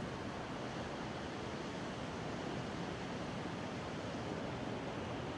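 Wind blowing, a steady even rushing hiss.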